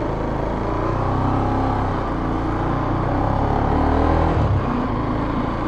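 Motorcycle engine heard from the bike itself, pulling away and accelerating with a steady rise in pitch, then a brief dip about four seconds in as the rider shifts up a gear.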